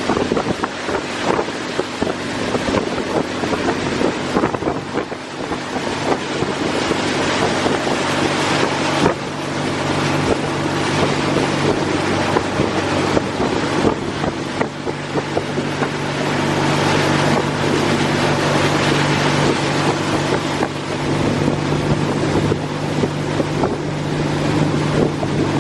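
An engine running at a steady speed, with wind noise on the microphone.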